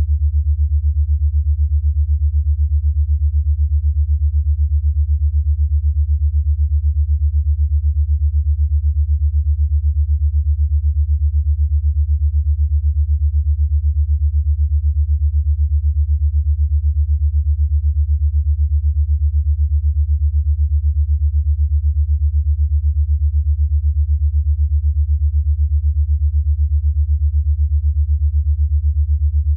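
Deep, steady synthesized sine tone pulsing rapidly and evenly: an 8 Hz alpha-wave brainwave-entrainment beat.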